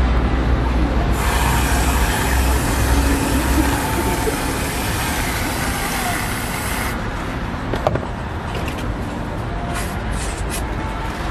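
Aerosol whipped-cream can spraying cream onto a crepe: a steady hiss that starts about a second in and cuts off sharply after about six seconds, followed by a few short spurts near the end. A low street-traffic rumble runs underneath.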